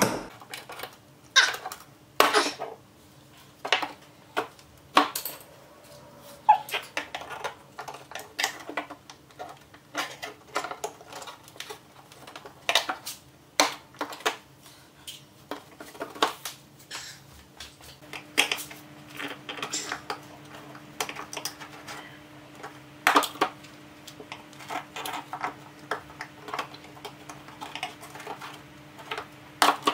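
Irregular clicks, taps and scrapes of hand tools prying plastic fasteners out of a golf cart's rubber floor mat, with small clatters of plastic and metal.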